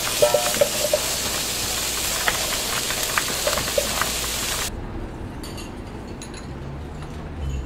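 Kitchen sound: a loud, steady hiss of steam and frying, with metal pans and utensils clinking now and then. The hiss stops abruptly a little past halfway, leaving a quieter low hum with faint clinks.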